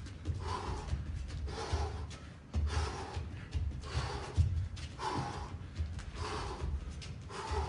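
A boxer's sharp exhalations, about two a second, as he throws punches while shadow boxing, with the low thuds of his feet moving on the ring floor.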